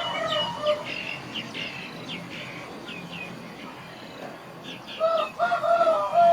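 Rooster crowing, a short call at the start and a louder, longer crow in several parts from about five seconds in, with small birds or chicks cheeping in quick falling chirps in between.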